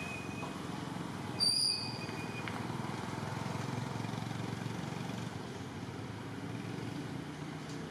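Steady outdoor background rumble, with one short high-pitched chirp about a second and a half in.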